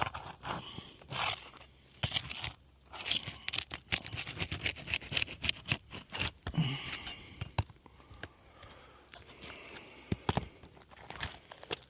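A tool scraping and clicking against asphalt shingles as a stuck 3-tab shingle is pried loose, with many irregular sharp clicks and short scrapes.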